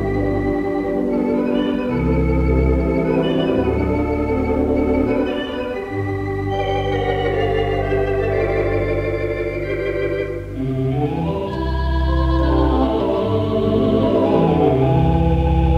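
Gaumont Manchester 4/14-rank Wurlitzer theatre organ playing sustained chords over a pedal bass, heard through a mono tape recording of a radio broadcast. The sound briefly thins about two-thirds of the way through, then comes back fuller and brighter.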